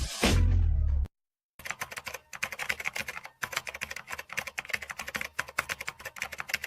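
Rapid typing on a computer keyboard, many quick key clicks a second, starting after a brief silence about a second and a half in. Before the silence, a loud sound with a deep bass cuts off suddenly.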